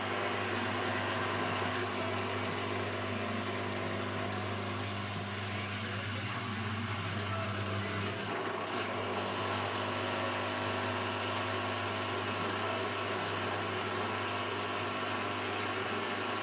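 Beko 7 kg washing machine running on a quick 90°C wash cycle, a steady electrical hum with a strong low drone that holds throughout.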